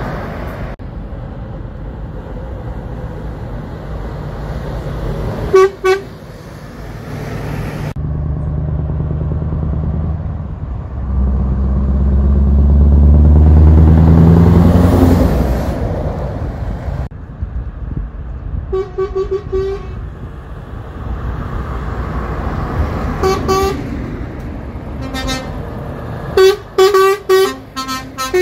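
Heavy trucks driving past one after another: diesel engines running, with one pulling through the gears louder and rising in pitch around the middle. Truck air horns give short blasts about six seconds in, again twice later, and in a quick string of toots near the end.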